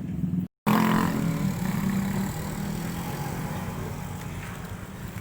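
A road vehicle's engine running, its low hum slowly fading away. The sound cuts out completely for a moment about half a second in.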